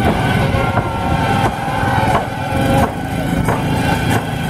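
A steady low rumble like an engine runs under rhythmic strokes about every two-thirds of a second from a Kerala race boat crew paddling hard and splashing, with a few wavering high tones like calls or whistles above.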